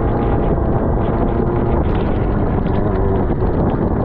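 Suzuki GSX-R600's inline-four engine running steadily as the bike rides over wet pavement in the rain, under a constant rush of wind on the microphone.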